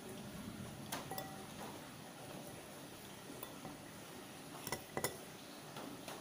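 Spoon and chopsticks clinking against a ceramic bowl while eating: a pair of sharp clinks about a second in, the first with a short ring, and another pair near five seconds in.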